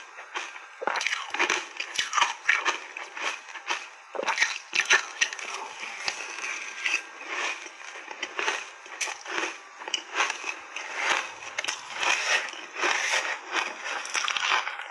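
Close-up crunching and chewing of mouthfuls of shaved ice, a dense, irregular run of crisp crunches several times a second.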